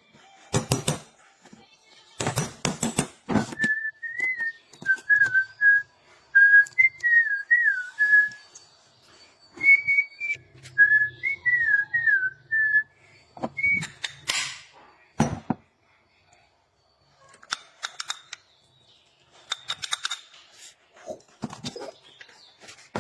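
A person whistling a wandering tune for about ten seconds, with sharp clicks and knocks before and after it.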